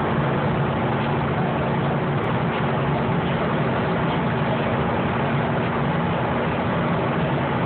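Car at high speed, around 120 mph, heard from inside the cabin: a steady engine drone under loud wind and road noise.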